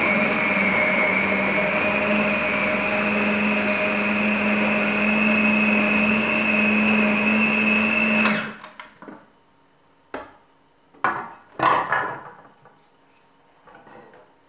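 Kenwood food processor motor running steadily with a high whine, chopping freshly added peanuts into peanut butter paste, and stopping abruptly about eight seconds in. A few sharp knocks and clatters follow as the processor bowl is handled.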